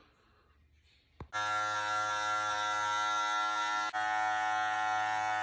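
Electric hair clippers switched on about a second in, then a steady buzz, with a momentary break about four seconds in.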